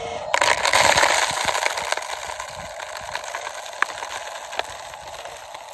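Gravel and small rocks pouring out of a tipping RC dump truck's bed and clattering down onto rock: a loud rushing clatter that starts about a third of a second in and slowly fades, with scattered clicks of single stones.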